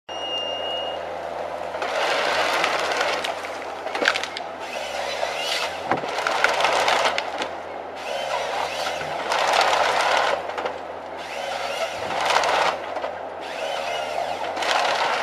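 Forestry harvester at work: a steady diesel engine hum under repeated harsh bursts, each lasting one to three seconds, as the harvester head feeds and saws the trunks, with a few sharp cracks of breaking wood.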